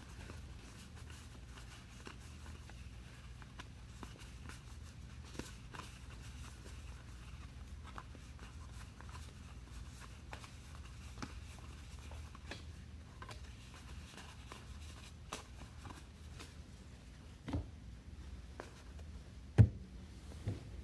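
Trading cards and packs being handled and sorted on a tabletop: soft scattered clicks and rustles over a steady low hum. Near the end come a few sharper knocks, the loudest about a second before the end, as cards or a stack are set down on the table.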